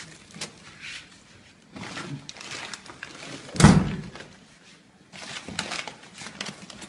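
Plastic bags and cloth wrapping rustled and handled, with one loud thump about halfway through.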